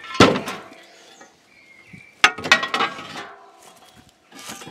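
Scrap steel pieces clanking together as they are shifted and pulled from a scrap pile. There are two sharp metallic clanks, one just after the start and one about two seconds in. Each rings on briefly, and the second is followed by a short clatter.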